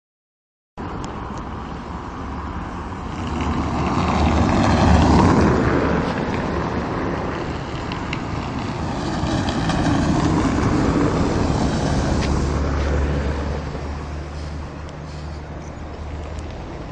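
Street traffic: cars driving past, swelling loud about five seconds in and again around ten seconds, over a low engine hum.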